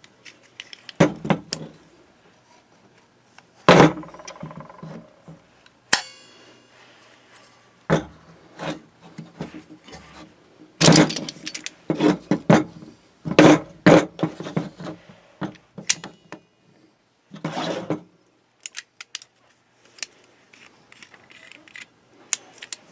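DeWalt C-clamp locking pliers being handled and fitted against an object: irregular metal clanks, clicks and scrapes, a few sharp knocks with a short ring.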